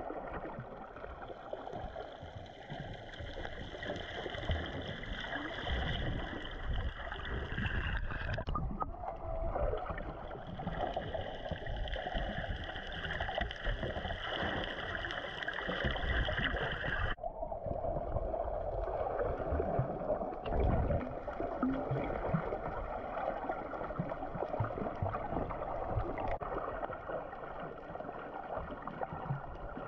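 Muffled underwater water noise picked up by a submerged action camera, with gurgling and a steady hum throughout. The sound changes abruptly twice, at about a third and about halfway through, where the footage is cut.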